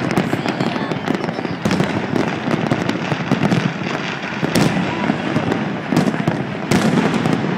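Many distant fireworks going off at once: a continuous din of bursting shells and crackle. A few sharper bangs stand out, about one and a half, four and a half, six and nearly seven seconds in.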